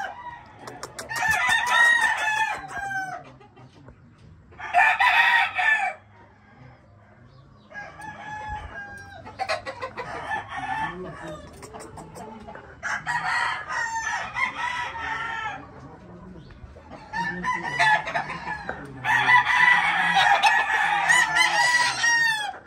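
Several caged gamecocks crowing one after another, about seven crows with short gaps between them, two of them overlapping near the end.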